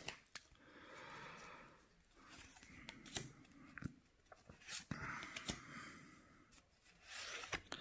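Quiet handling of Pokémon trading cards: cards slid one at a time through the hand, a soft hissing slide about every two seconds with small ticks between.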